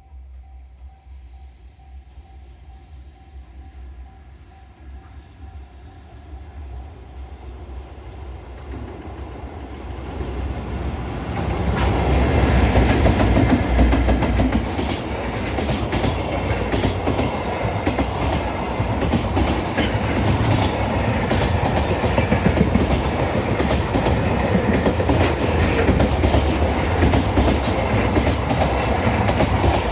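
Freight train approaching and then running past close by. Its rumble grows over about the first ten seconds, then holds steady and loud with a continuous clatter of wheels over rail joints.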